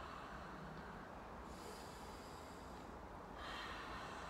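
A woman's slow, audible breathing: one long breath fading about a second and a half in, and the next breath starting about three seconds in.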